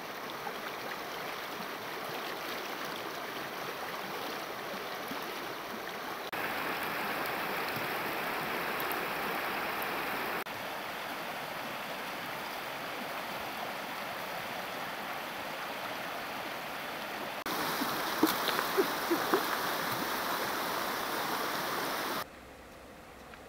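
Shallow river rushing over rocks in rapids, a steady, even noise of running water that jumps in level at several points. A few short, sharp knocks or splashes sound about three-quarters of the way through, and the water is quieter near the end.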